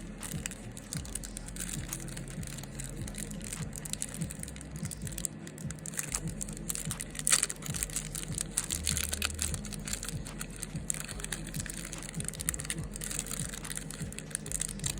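A Pokémon trading-card booster pack's foil wrapper being torn open and crinkled by hand: a dense, irregular run of crackles and rustles, with one louder crack about halfway through.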